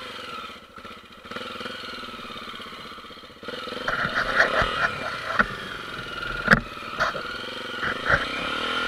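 Honda single-cylinder trail motorcycle engine running under varying throttle, louder from about three and a half seconds in, with a series of sharp knocks and clatters in the second half.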